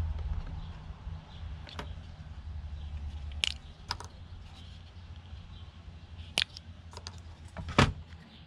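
Scattered sharp clicks and snips from a small hand-held wire stripper and cutter as cable insulation is stripped and tubing is cut, about six in all, with the loudest knock near the end. A low hum underneath fades out a few seconds in.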